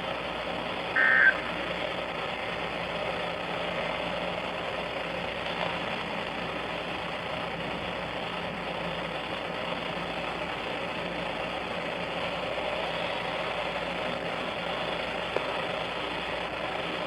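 Steady hiss of radio static from a weather radio receiver in a pause between broadcast messages. About a second in there is one brief, high electronic burst.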